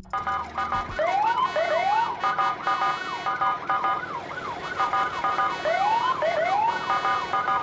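Electronic toy siren wailing quickly up and down, about two swings a second, with bursts of short rising whoops around a second in and again near six seconds.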